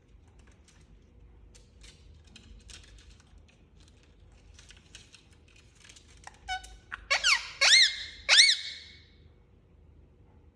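Indian ringneck parakeet giving a quick series of short, shrill squawks, each rising and falling in pitch, after a few seconds of faint clicking.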